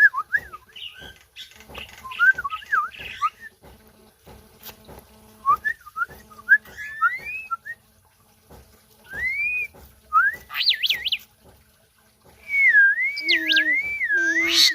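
Pied starling (jalak uren) singing: a string of short whistled phrases that slide up and down in pitch, with a quick wavering trill about eleven seconds in and a longer wavering whistle near the end.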